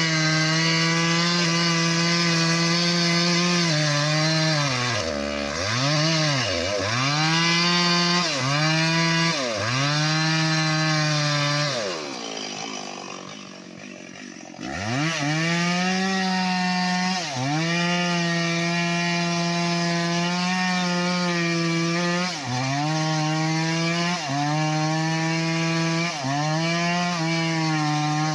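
Stihl two-stroke chainsaw running at high revs as it cuts into the base of a sonokeling (Indian rosewood) trunk, its engine note sagging and recovering several times. About halfway through it drops to a low, quiet idle for a couple of seconds, then snaps back up to full revs and holds, dipping briefly a few times.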